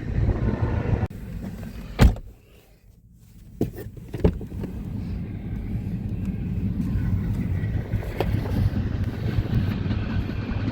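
Steady low rumble of a vehicle, broken about two seconds in by a sharp thump and a brief hush. A couple of clicks follow, and then the rumble comes back steady.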